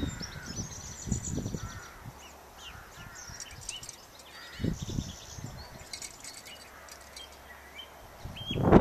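Birds chirping and calling, with a few dull low thuds in between; the loudest thuds come right at the end.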